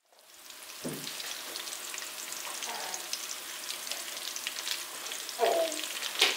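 Potato slices and sucuk sausage sizzling and crackling in oil in a frying pan. A soft knock about a second in and a couple of short clatters near the end.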